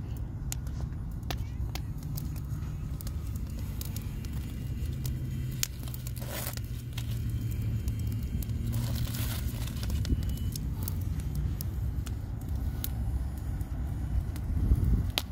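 Wood fire crackling, with scattered sharp pops and snaps over a steady low rumble, and two brief hissing rustles near the middle.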